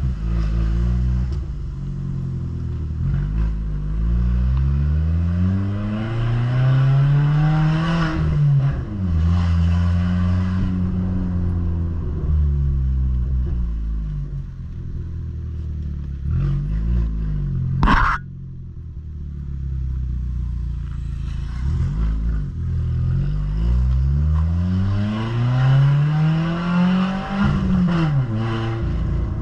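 Ford New Fiesta's exhaust, modified with a diffuser ahead of the mufflers, sounding as the car accelerates through the gears: the note climbs in pitch with each pull and drops at each shift. About two thirds of the way through there is one short sharp knock.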